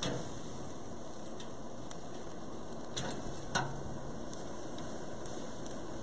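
Beef short ribs sizzling on a grill grate over live coals, a steady hiss, with a few sharp clicks about two, three and three and a half seconds in as the long meat fork touches the grate.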